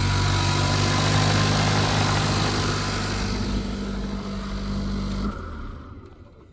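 Mercedes-AMG GLA45's turbocharged 2.0-litre four-cylinder running steadily after starting, then switched off about five seconds in. It starts because the starter is fed straight from the battery through a fuse, bypassing the starter current limiter: the failed limiter was the cause of the no-crank.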